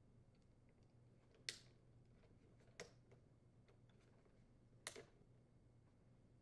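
Three small clicks of hard plastic parts being handled, the last a quick double, as a string trimmer's throttle trigger and spring are worked into the plastic throttle housing.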